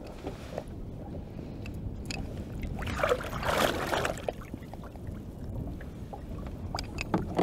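Pike thrashing and splashing at the water's surface as it is grabbed by hand beside a boat, with one big splash a little after three seconds in. A steady low rumble runs underneath.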